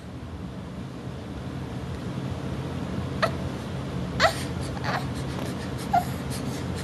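Four short whimpers, each rising in pitch, starting about three seconds in, over a steady low hum.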